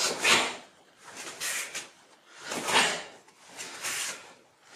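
A man's breathing as he performs karate movements: about four quick, unpitched breaths a second or so apart, in as he starts to move and out as he releases, with the swish of his karate gi.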